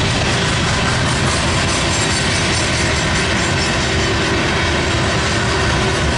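Loaded Herzog ballast train's hopper cars rolling past, a steady, loud rumble of wheels on rail.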